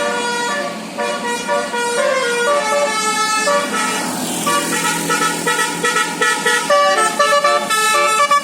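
Bus telolet musical air horn playing the basuri melody, several horn trumpets sounding notes together and stepping quickly from note to note.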